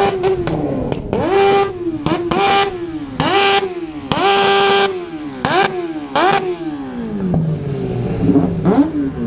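Motorcycle engine revved hard about six times in a row, each rev climbing fast and held flat at the rev limiter for a moment before dropping back. Smaller blips of the throttle follow near the end.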